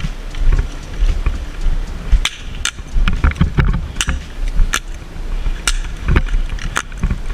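Airsoft guns firing: a string of sharp single snaps at irregular intervals, about seven of them, over a low rumble of wind on the microphone.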